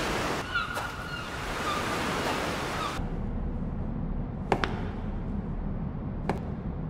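Ocean surf washing on a beach, with a few short high tones over it. About three seconds in it cuts off abruptly to a muffled low rumble with a couple of sharp clicks.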